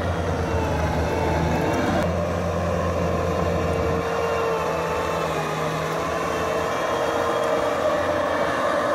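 Engine of earthmoving machinery running steadily, its pitch shifting slightly now and then.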